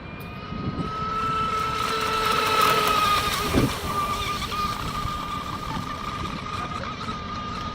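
HK Pursuit RC speedboat's brushless electric motor running at speed, a steady high whine over the hiss of water. It grows louder to a peak about three seconds in, then eases off, with a brief knock of the hull just after the peak.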